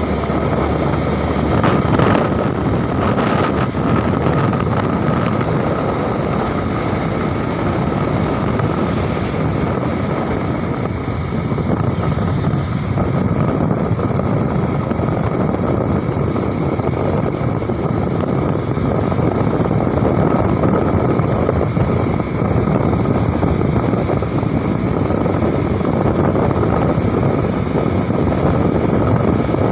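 Hino truck's diesel engine running steadily under way, with road and wind noise and a steady high whine.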